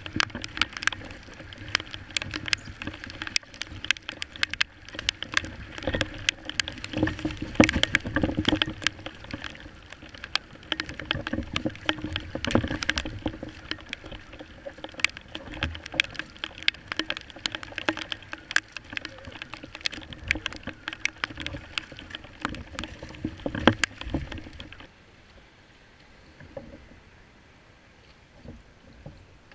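Choppy sea slapping and splashing against a Hobie Revolution 11 kayak's hull, with rain and spray hitting the camera as dense, irregular sharp knocks over a rushing background. About 25 seconds in it cuts to much quieter, calm water.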